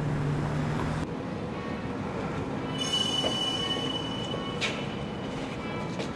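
A steady low hum in the first second, then a high metallic squeal held for about two seconds from the middle, with a couple of sharp clicks near the end.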